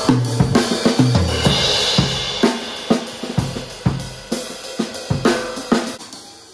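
Drum kit played hard in a band, with snare and bass drum hits under a wash of crashing cymbals and other instruments. The sound fades away over the last few seconds.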